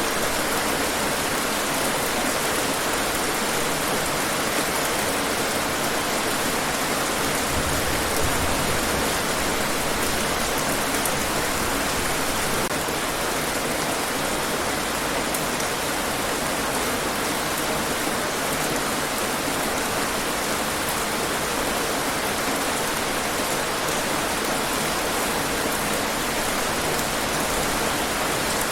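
Steady rainfall, an even unbroken hiss of rain falling on hard surfaces.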